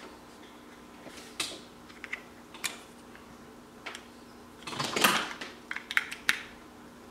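Plastic clicks and rattles of a USB cable being handled and plugged into a small inline USB current meter: a few scattered clicks, a louder scraping rattle about five seconds in, then three sharp clicks near the end.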